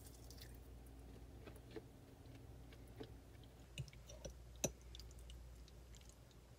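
Faint, scattered clicks and scrapes of a metal fork on a ceramic plate while spaghetti is eaten, the sharpest click a little past halfway.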